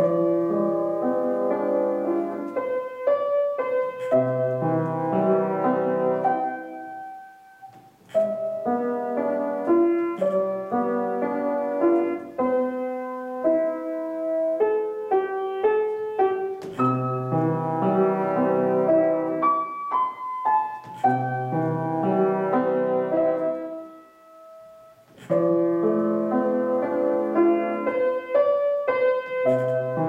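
Grand piano played solo, a piece in running phrases of quick notes over lower chords, with two short breaks where the sound dies away between phrases.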